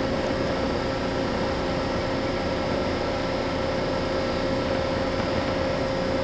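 1999 Toyoda GL5A-63II CNC OD cylindrical grinder running under power, its grinding-wheel spindle turning and its work head just started at 75 RPM: a steady mechanical hum with one constant mid-pitched whine.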